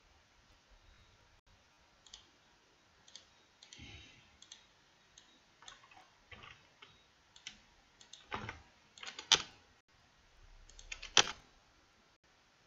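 Scattered clicks of a computer mouse and keyboard keys, irregular and spaced out, with two sharper clicks a little after nine seconds and about eleven seconds in.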